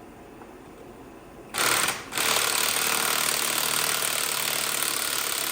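Impact wrench hammering a stubborn bolt on the tractor loose. It runs in a short burst about a second and a half in, stops briefly, then hammers steadily for about three more seconds.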